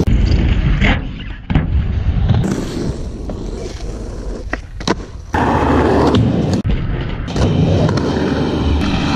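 Skateboard wheels rolling over concrete and skatepark ramps, with a few sharp clacks of the board.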